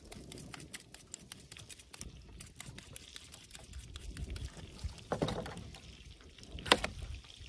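A cucumber being peeled by hand with a small blade: quick, light scraping clicks, then one sharp knock near the end.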